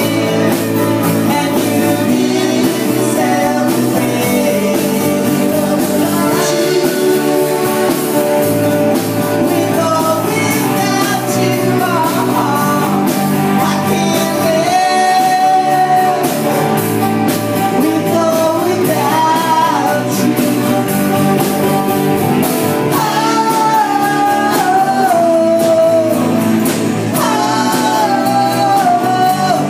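Live rock band playing: acoustic guitar, electric guitar and drum kit, with a sung lead vocal that comes through most clearly from about ten seconds in.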